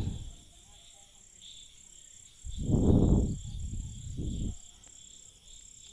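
Spoon working a thick flour-and-vegetable mix in a stainless steel bowl: a short scraping rustle about two and a half seconds in, trailing off about two seconds later, over a faint steady high cricket trill.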